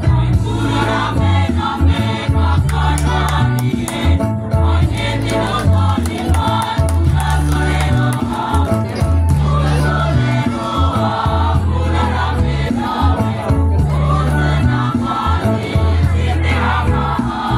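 School choir singing together over a loud bass line of held low notes that change about every second, with light percussive ticks running through it.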